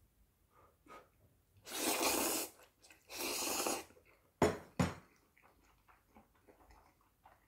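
Two long, loud slurps of jjapaghetti noodles, then two sharp clacks of the stainless steel bowl and chopsticks about halfway through, followed by faint chewing.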